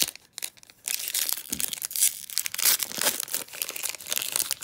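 Foil Pokémon booster pack wrapper being torn open and crinkled by hand: a short burst at the start, then dense crackling and rustling almost without a break from about a second in.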